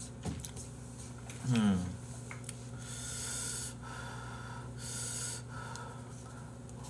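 Noodles being slurped from a cup in a few noisy pulls, with a brief vocal sound about one and a half seconds in.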